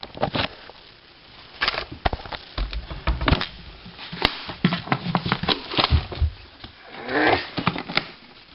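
Handling noise: irregular clicks, knocks and rustling as a wallet is fumbled with against a hard case.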